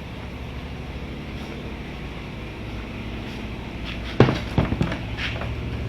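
A steady, low engine hum that grows slowly louder, with a few sharp knocks about four seconds in.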